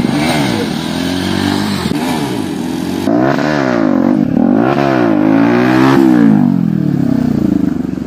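Bajaj Pulsar NS200's single-cylinder engine revved up and dropped back over and over, about once a second, through an exhaust with its dB killer removed, so it sounds loud and raw.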